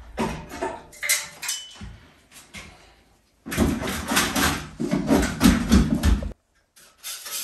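Scrapes and knocks of hand tools working plaster on a wall, in two stretches: scattered at first, then denser and louder before cutting off suddenly.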